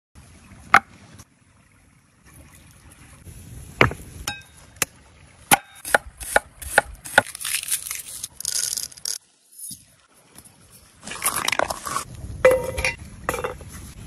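Food being handled on a wooden board: a series of sharp taps and knocks, then a crinkly, papery rustle as dry skins are peeled off by hand, with a few clinks near the end.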